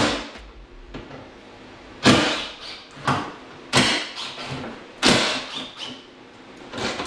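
Four sharp clunks at irregular gaps of about a second, each followed by a brief rattle, with smaller clicks near the end.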